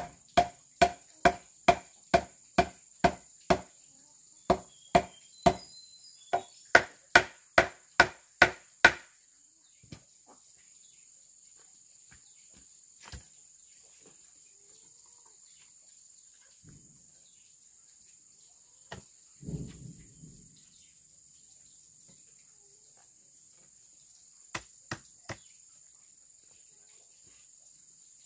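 A hand tool strikes wood in a fast, even rhythm, about two to three blows a second, each with a short ringing tone. The blows stop about nine seconds in; after that come a few scattered knocks, a low dull thud around the middle and three more quick strikes near the end. Insects keep up a steady high-pitched trill underneath.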